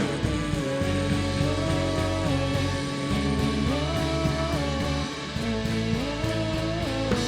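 Live worship band playing an instrumental passage between sung lines: a guitar melody gliding between held notes over a steady bass.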